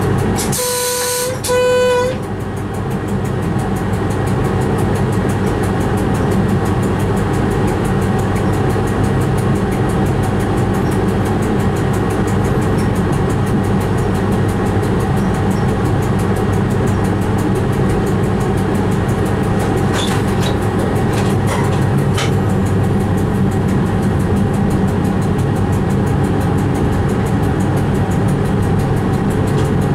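Train horn sounded as two short blasts of one tone right at the start, then the steady running noise of the train on the track, heard from inside the driver's cab. A few faint clicks about twenty seconds in.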